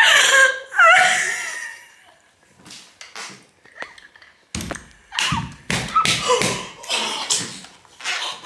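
A woman laughing helplessly: a squealing laugh at the start, a lull of a couple of seconds, then a run of short bursts of laughter from about four and a half seconds in.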